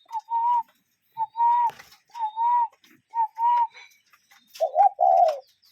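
A cuckoo calling its two-note "cuck-oo" phrase four times, about once a second, each a short note followed by a longer one. Near the end comes a louder, lower, wavering double call. Faint high chirps of other birds sound behind.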